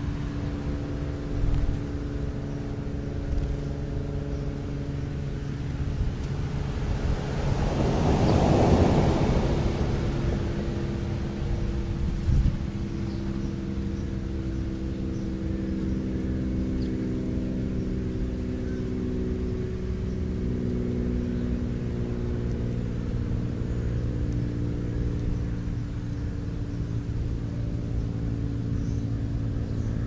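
Steady engine drone, with a rushing swell of a passing vehicle that rises and falls about eight to nine seconds in.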